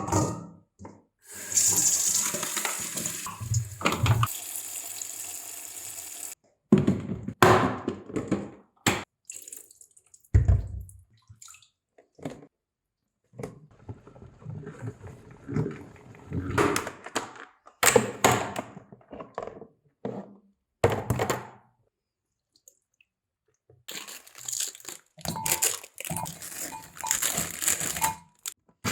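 Water running from a tap into a kitchen sink for several seconds, then a series of knocks and clatters as things are handled in the sink. The water runs again near the end.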